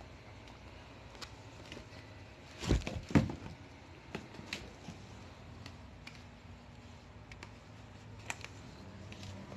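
Handling noises of canvas sneakers being put on a foot: light taps and clicks scattered throughout, with two louder thuds close together about three seconds in.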